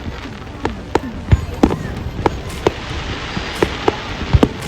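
Fireworks going off: sharp bangs and pops at irregular intervals, about two a second, over a steady noisy hiss.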